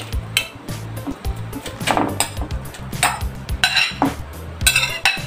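Metal spoon clinking and scraping against a ceramic plate in a series of irregular strokes as shredded bamboo shoots are pushed off it into a cooking pot. Background music plays underneath.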